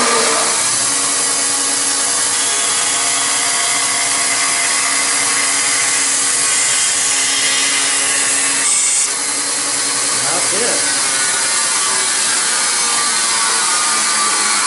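Bandsaw running steadily, its blade cutting a circle out of a thick Baltic birch plywood board. A constant motor hum sits under the noise of the blade in the wood.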